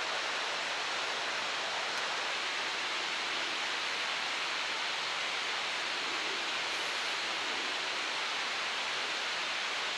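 Steady, even rushing noise of outdoor ambience, holding the same level throughout with no distinct events.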